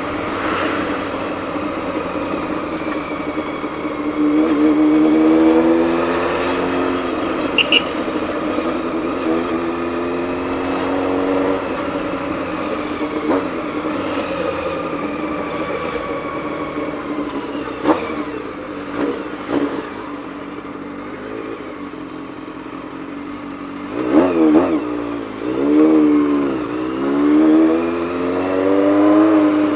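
Honda CBX 750's inline-four engine accelerating up through the gears, its revs repeatedly climbing and dropping back. About three-quarters of the way in come several quick rises and falls in revs, then a long climb near the end.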